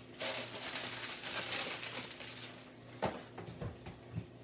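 Plastic shopping bag rustling and crinkling as it is handled for about two seconds, followed by a few light knocks.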